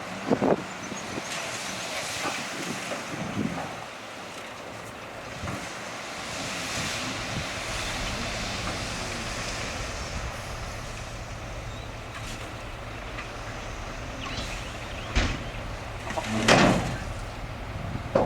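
Heavy diesel earthmoving machines running with a steady low engine drone, broken by scattered sharp knocks and bangs; the loudest cluster of bangs comes near the end.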